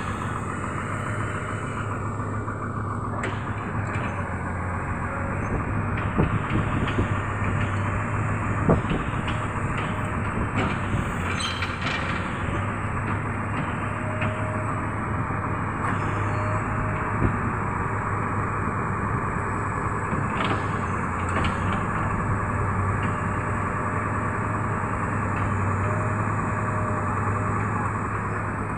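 Truck-mounted crane's diesel engine running steadily with a low hum, holding a test weight during a load test. A few short knocks, the loudest about a third of the way in.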